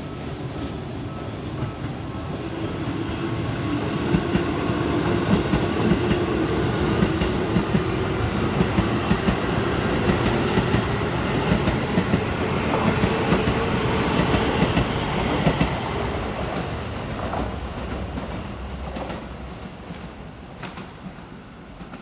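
Chiba New Town Railway 9100-series electric train passing close by. The rumble builds over a few seconds, and the wheels clack regularly over the rail joints through the middle, with a low motor hum rising slightly in pitch. The sound fades away as the last car goes by.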